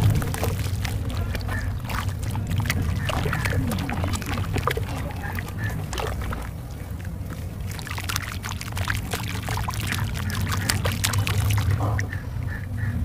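Soft, dusty cement pieces being snapped and crumbled, a dense run of small cracks and crunches over a steady low hum, played back at double speed.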